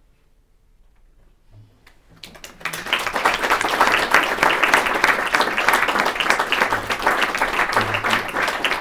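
The last piano tone fades into near silence, then an audience breaks into applause about two seconds in, swelling quickly and holding steady.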